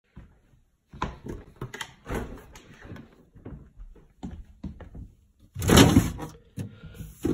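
Refrigerator door pulled open with a run of knocks and rustles, then a plastic fridge drawer holding beer cans slid out about three quarters of the way through, the loudest sound.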